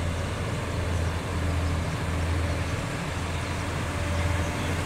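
Heavy diesel truck engines running steadily under load, a constant low drone, as a multi-axle trailer carrying a huge steel vessel is hauled across a railway crossing.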